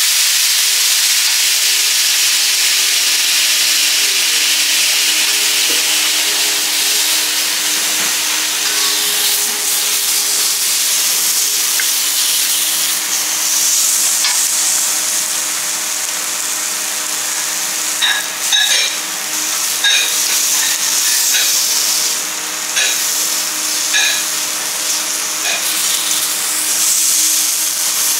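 Water flash-boiling on a hot teppanyaki griddle around king prawns, a loud steady hissing sizzle that eases into frying. In the second half a metal spatula and fork clink and scrape against the steel plate several times.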